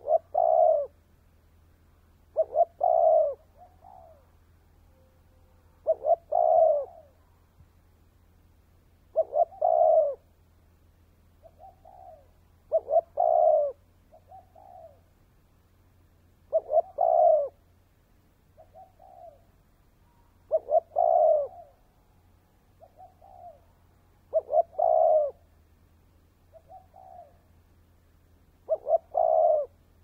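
Spotted dove cooing. A repeated phrase, a quick stutter of short notes followed by a longer coo, comes about every four seconds, nine times in all, with fainter, shorter coos in the gaps.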